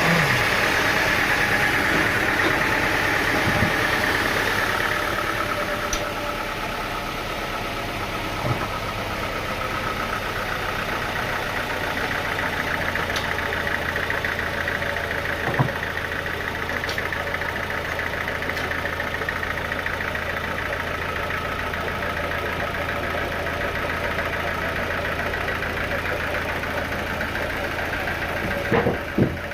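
Sawmill engine running steadily at a constant speed. It is a little louder for the first few seconds before settling, with a few short knocks scattered through.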